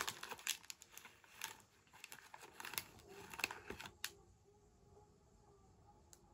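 Clear plastic candy wrapper crinkling in the hands, a run of small crackles that stops about four seconds in.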